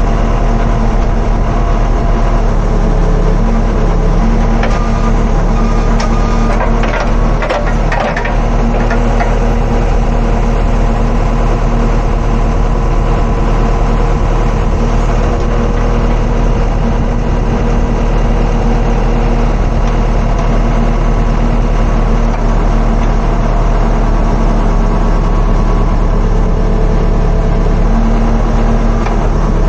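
Diesel engine of a JCB backhoe loader running steadily under load while the backhoe arm is worked by its hydraulic levers, heard from inside the operator's cab.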